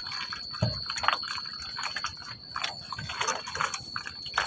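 Small waves lapping and splashing irregularly against the side of an outrigger boat, a few soft slaps a second.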